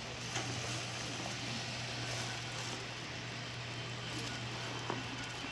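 Steady low hum under faint room noise, with two light clicks, one about half a second in and one near the end.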